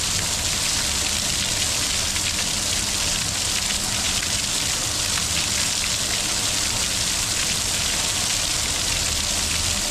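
Steady rushing of water: an even hiss with a low rumble beneath.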